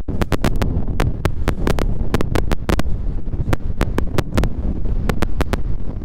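Wind buffeting the microphone: a loud, steady low rumble broken by many sharp, irregular clicks that come in clusters.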